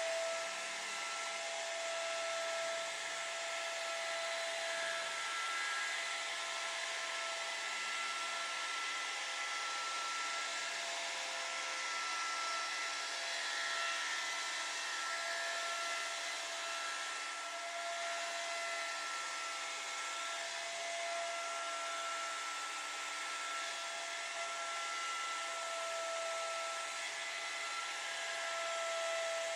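Electric wood router running steadily with a high whine over a rushing hiss, carving a design into a wood board.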